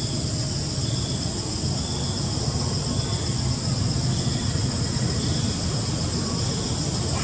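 Steady, high-pitched insect chorus with a short call repeating about once a second, over a low rumble.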